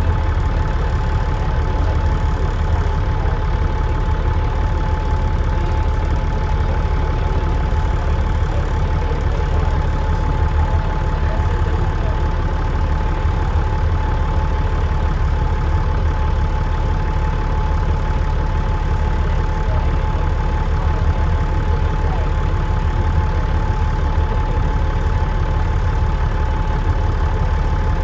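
Dennis Trident double-decker bus's diesel engine running steadily, heard on board: a constant low rumble with a thin, steady turbo whistle above it.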